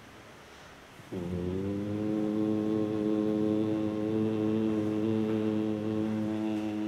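A man's voice chants one long, steady held note into a microphone, starting about a second in. The pitch dips briefly at the onset and then holds level.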